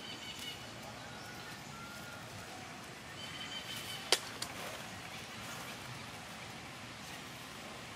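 Steady outdoor background hiss with two short, high, steady calls, one near the start and one about three seconds in, and a couple of faint whistles between them. A single sharp click about four seconds in is the loudest sound.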